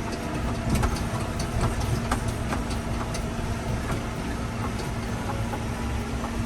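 Farm tractor engine running steadily while raking hay. It holds a constant hum, with scattered short clicks and rattles throughout.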